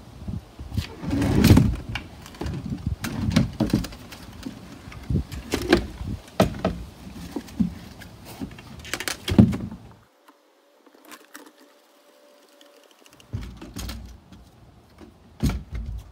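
Irregular knocks, clunks and rustling of a Geonics EM-31 MK2 conductivity meter's plastic booms and console being lifted out of a foam-lined aluminium travel case, with a quieter pause about ten seconds in.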